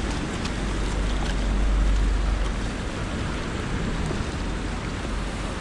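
Wind buffeting the microphone: a steady low rumble with a hiss over it, swelling about two seconds in.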